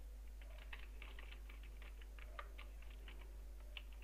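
Faint typing on a computer keyboard: quick, irregular key clicks, several a second.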